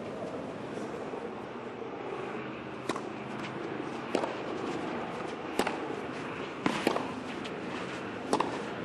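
Tennis ball struck back and forth with rackets in a rally: sharp pops coming about every second and a half from about three seconds in, two of them close together near seven seconds, over a steady background noise.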